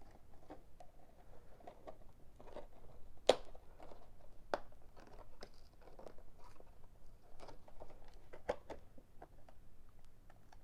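Cardboard of a Japanese Pokémon booster box being opened and handled: scattered soft clicks, scrapes and rustles, with one sharper click about three seconds in.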